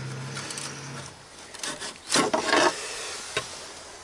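Hand work on a truck's dashboard panel being unscrewed and worked loose: short rasping scrapes and rubbing, loudest a little past halfway, and a single click near the end. A low steady hum stops about a second in.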